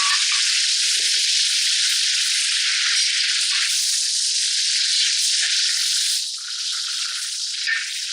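Hog plum (amda) chutney sizzling steadily in a hot pan with its spices, easing a little about six seconds in.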